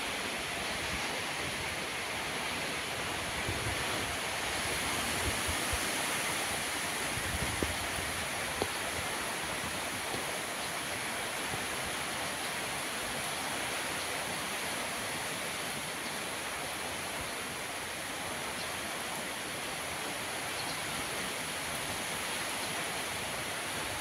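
Steady rain hiss during a windy monsoon storm, with wind gusts rumbling on the microphone now and then in the first several seconds.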